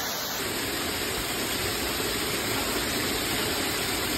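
Waterfall rushing steadily as water pours over rock close by, a continuous hiss of falling water that gets fuller about half a second in.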